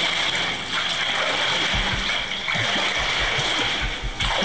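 Steady rushing water noise, with background music and a low, even beat coming in about a second and a half in.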